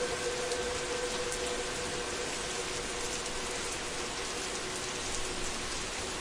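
Ambient drone music: a steady rain-like hiss with a faint held synthesizer tone from a Lyra-8 drone patch, fading out over the first few seconds.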